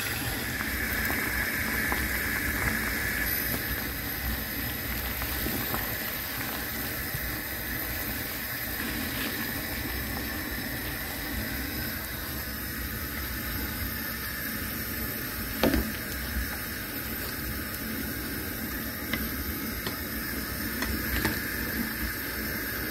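Pot of water heating on the stove toward the boil: a steady hiss of forming bubbles. A single sharp knock about two-thirds of the way through.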